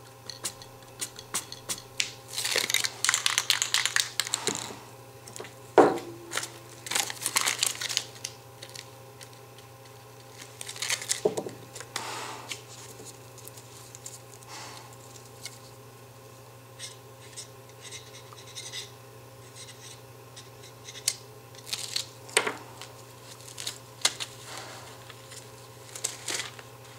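Crumpled paper crinkling and rustling as it is dabbed and pressed onto the wet spray paint, in irregular bursts with scattered sharp clicks, over a steady low hum.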